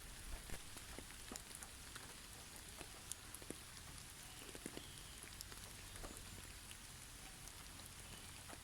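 Snowfall in a forest: a faint, steady hiss with scattered soft ticks and patters, like drops or clumps landing.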